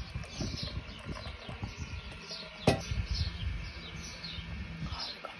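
Small birds chirping over and over in short falling calls, over a low, uneven rumble. A single sharp click a little under three seconds in is the loudest sound.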